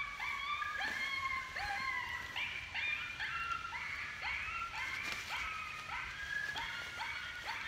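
Electronic predator caller playing a recorded aggressive coyote distress call: a string of overlapping yelps and whines, each rising sharply in pitch and then held, about two a second.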